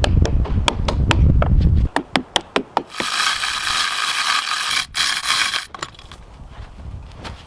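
A ratchet mechanism clicking in a quick, even series, then a steady rasping hiss for nearly three seconds.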